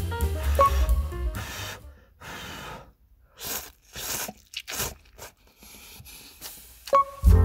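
Noodles being slurped off chopsticks, several short noisy slurps with pauses between them. Background music with a drum beat fades out at the start and comes back in near the end.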